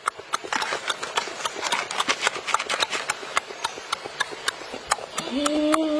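Cooked crab being pulled apart by hand in chili sauce, with dense, wet crackling and clicking of shell and sauce. Near the end, a short hummed 'mmm' of enjoyment.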